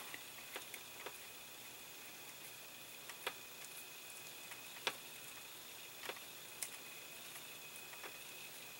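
Faint, irregular small clicks and taps of fine metal tweezers and thin wires being handled while the wires are twisted together, about seven in all, the sharpest about five seconds in.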